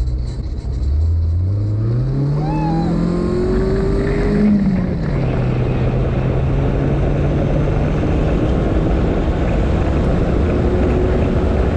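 The Honda buggy's engine accelerating under a driving load, its pitch climbing for about four seconds, then dropping sharply and holding steady as it cruises. Tires crunch over the gravel and wind rushes past throughout.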